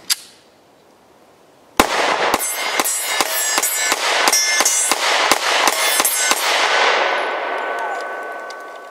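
A quick run of about fifteen sharp metallic clangs with bell-like ringing, starting about two seconds in, then a long ringing tail that fades slowly away.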